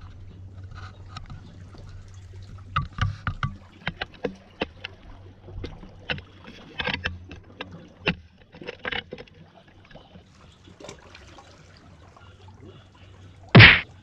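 Handling noise from a camera held against a jacket over a steady low rumble, with scattered clicks and knocks through the middle. Near the end comes one short, loud cry as a small fish is swung up on the rod.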